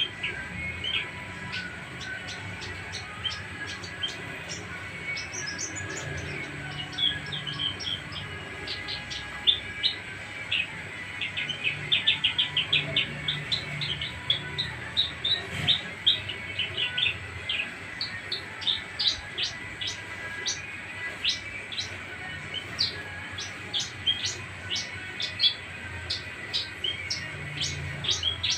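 Javan bush lark (branjangan) singing a long, varied song of short sharp chirps, with fast rattling runs of notes.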